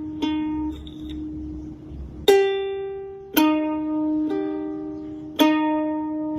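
Background music of slow, single plucked string notes, each struck and left to ring and fade.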